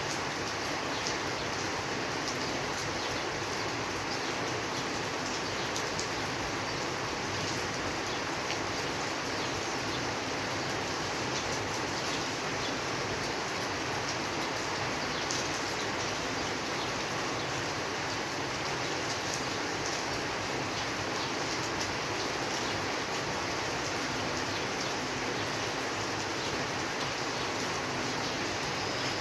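Steady rain falling, an even hiss with scattered drops pattering on a surface.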